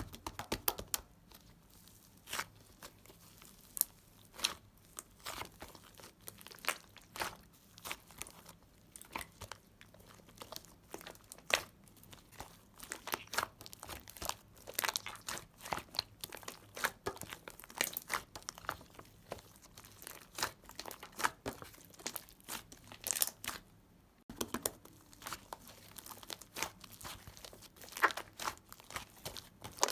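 Close-up crunching and crinkling: many irregular sharp crackles, with a brief pause about 24 seconds in.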